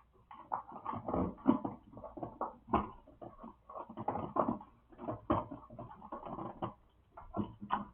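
Hands working electrical wires into a three-way wire connector: irregular clicks, taps and rustling of wire and plastic.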